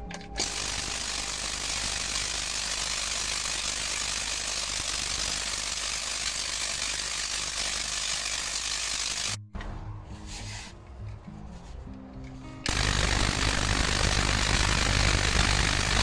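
Spark gap Tesla coil fed by two microwave oven transformers, firing with a loud, steady rattling buzz as arcs leap from its toroid. It cuts off abruptly about nine seconds in and starts again about three seconds later, louder and with a deeper hum underneath.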